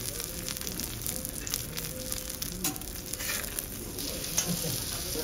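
A5 Kobe beef loin steak sizzling on a steel teppanyaki griddle, a steady hiss with fine crackles of spitting fat.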